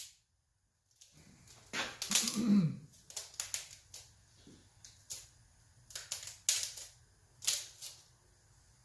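Scattered sharp metallic clicks and taps, one every half-second to second, as head studs are handled and lined up into the engine block. A brief low voice sound about two seconds in.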